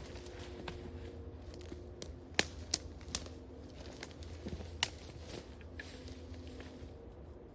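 Short log rounds tumbling down a steep wooded slope, giving a few sharp knocks as they hit the ground and other wood, three close together about two and a half seconds in and another near five seconds.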